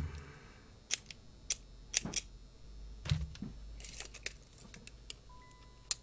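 Scattered sharp clicks and taps from handling a plastic cabinet deadbolt lock body and a tape measure, with a duller knock about three seconds in.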